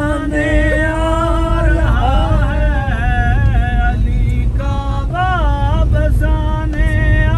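A man singing an Urdu devotional song in praise of Ali, with long held notes that bend in pitch. Underneath is the steady low road rumble of a moving car, heard from inside the cabin.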